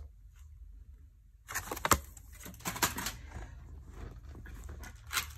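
Clear plastic trays of colour pencils being handled, with a run of light clicks and rattling from the pencils and plastic starting about a second and a half in, one sharper click soon after.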